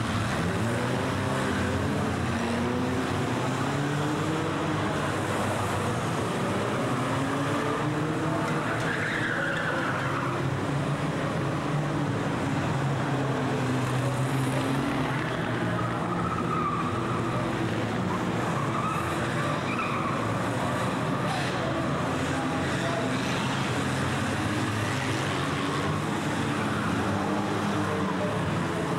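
A pack of old saloon banger-racing cars racing past, several engines revving up and down over one another, with tyres skidding on the track.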